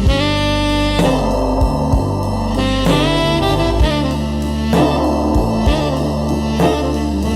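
Slow instrumental blues-jazz with a saxophone lead over a steady bass line and a drum beat of about one hit a second.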